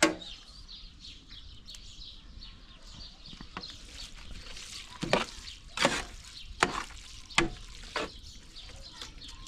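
Metal ladle stirring sauce in a large metal cooking pot and knocking against the pot: one sharp knock at the start, then five knocks about one every three-quarters of a second in the second half.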